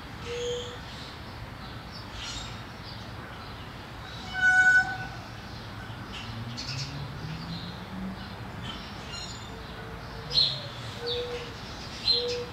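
Birds chirping and calling, with short low whistled notes repeating every second or so. About four and a half seconds in, a brief loud high whistle-like call stands out above the rest, and a faint low rumble rises in the background just after.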